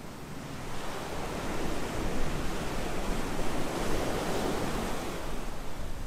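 Ocean surf breaking and washing up a beach, swelling about a second in and easing near the end, with some wind on the microphone.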